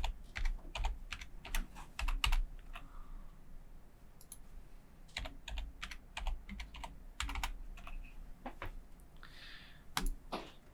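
Typing on a computer keyboard: irregular bursts of key clicks with short pauses, as a new password is entered.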